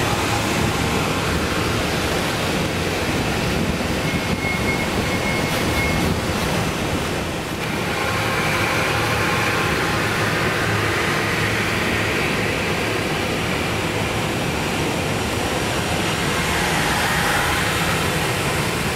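Metro-North passenger train passing along a station platform: a steady rush of wheels on rails and moving air, with a faint high tone for a couple of seconds about four seconds in.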